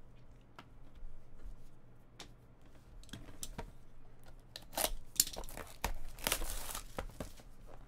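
A cardboard trading-card box being slit open and the foil-wrapped pack inside crinkling as it is worked out: a few light ticks at first, then a run of tearing, scraping and crinkling that gets louder from about three seconds in.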